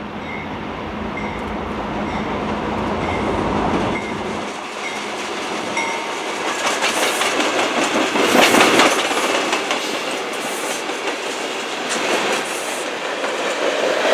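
SEPTA Silverliner V electric multiple-unit commuter train passing close at speed, its wheels clattering over the rail joints, loudest about halfway through. At the very end a freight train's tank cars start rolling past.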